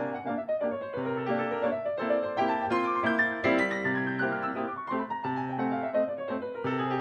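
Background piano music, a lively piece with long runs of notes falling in pitch over a repeating low accompaniment.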